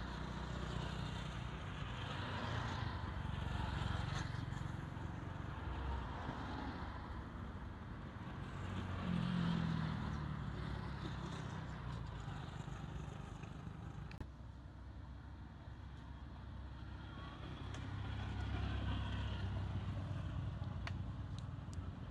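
Road traffic: cars and motorbikes passing by, a low rumble that swells and fades several times.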